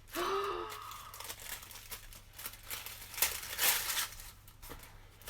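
Wrapping paper crinkling and tearing as a gift is unwrapped by hand, in uneven crackles with the loudest rustles a little after three seconds and near four seconds.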